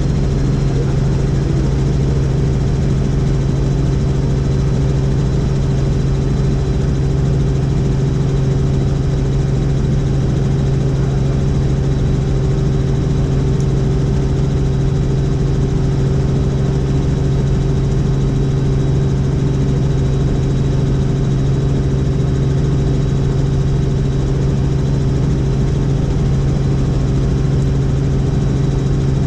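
Helicopter in flight: a steady engine and rotor drone with a strong low hum, even and unchanging throughout.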